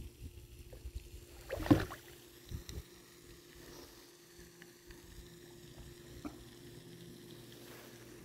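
Small boat on a lake, mostly quiet with a faint steady hum and light ticks, and one short louder noise just under two seconds in.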